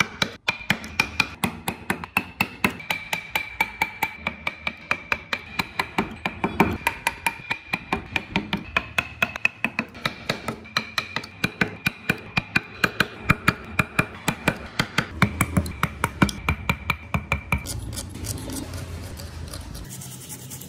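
Steel carving chisel struck by a wooden mallet, cutting into wood in quick, even taps about four a second, each tap with a slight metallic ring. Near the end the taps stop and give way to sandpaper rubbing on a small carved wooden piece.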